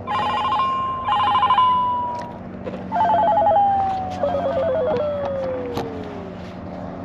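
Mobile phone ringtone for an incoming call: warbling electronic trills alternating with a steady tone, each phrase ending in a long falling glide, repeating twice.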